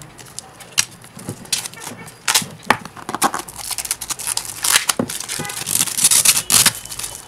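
Clear plastic wrapping on a phone box being peeled and handled, giving irregular crinkling and sharp crackles, densest in the second half.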